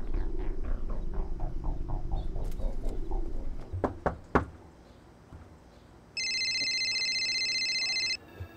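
A quick run of falling chirps over a low rumble, then three sharp knocks on a door about four seconds in. About six seconds in, a cell phone rings with a steady electronic tone for about two seconds.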